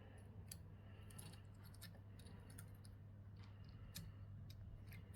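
Near silence with a steady low hum and faint, scattered clicks and taps of small plastic parts being handled: the door view cam's tightening nut being worked over the connecting wire.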